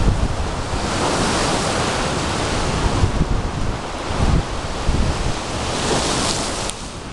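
Wind buffeting the microphone in uneven gusts over choppy water, with waves breaking and washing against a breakwall.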